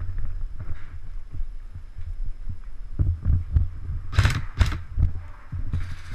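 Irregular low thuds of body movement and footsteps picked up by a body-worn camera's microphone, with two short sharp sounds about half a second apart a little past four seconds in.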